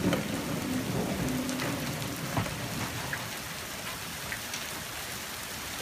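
Steady rain falling on pavement and lawn, with a low rumble during the first couple of seconds.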